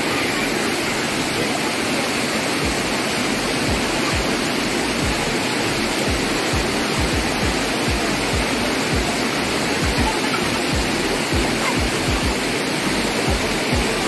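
Dunn's River Falls: water rushing steadily over its stepped rock cascade and churning around people wading in it, with frequent short low thumps on the microphone.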